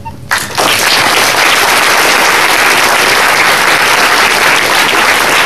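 Audience applauding, starting suddenly a fraction of a second in and holding at a steady level.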